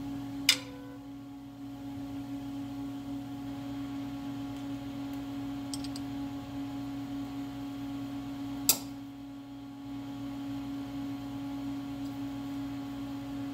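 Steady hum of a Haas CNC lathe standing with its spindle stopped, broken twice by a sharp metallic click, about half a second in and again some eight seconds later, the first ringing briefly.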